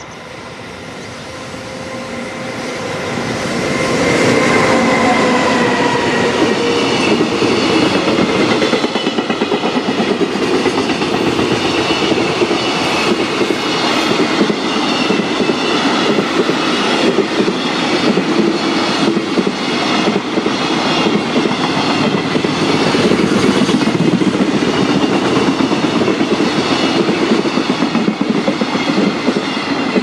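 Electric freight locomotive approaching and passing at speed, a tone from it falling in pitch as it goes by. A long train of container wagons follows, rumbling and clacking steadily over the rail joints.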